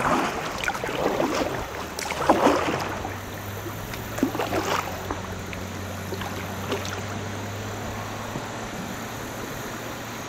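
A kayak paddle splashes through a few strokes in the first three seconds, then again once more, over the steady wash of the river's current. In the middle, the low steady hum of a pickup truck's engine comes from the road bridge overhead as it crosses.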